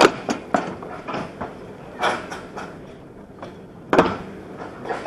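Summer toboggan sled running along its steel track, with sharp clunks and knocks every second or so; the loudest come right at the start and about four seconds in.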